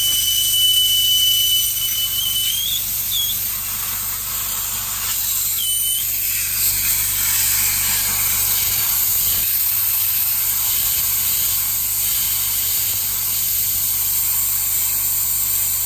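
Air hissing loudly out of a freshly mounted Michelin tire through the open valve stem, its core pulled, with a thin whistle over the first couple of seconds. The tire is being fully deflated so it can relax and sit round on the rim after the bead was forced over the safety hump.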